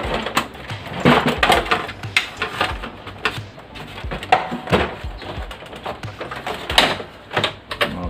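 Irregular plastic clicks, snaps and knocks as the side cover of a Brother DCP-L2540DW laser printer is unlatched and pulled off its chassis by hand.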